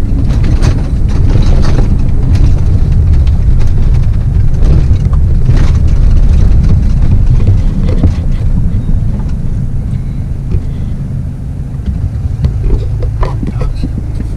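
Motorhome engine and road noise heard from inside the cab as it drives slowly, a steady low rumble with a few sharp knocks, easing off a little in the second half as it slows to park.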